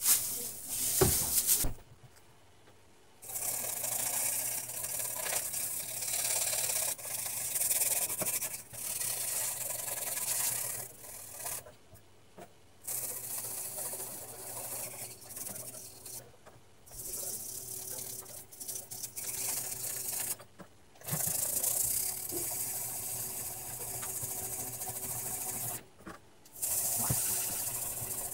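A brush scrubbing the solder side of a television's circuit board with isopropyl alcohol: a hissy rubbing of bristles on the board, in long stretches broken by several short silences.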